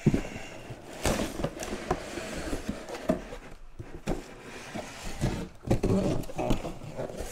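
Cardboard box being opened by hand: lid flaps folded back, with scraping, rustling and irregular knocks of the packaging.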